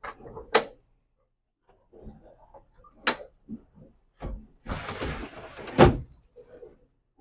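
Overhead cockpit hatch on a boat being unlatched and pushed open: two sharp clicks from its metal latch near the start and another about three seconds in, then a thump, a second of scraping as the hatch moves, and a sharp knock just before six seconds as it comes to rest open.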